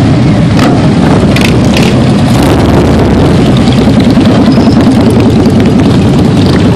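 A procession of big touring motorcycles passing close by, many engines running at once in a loud, constant rumble.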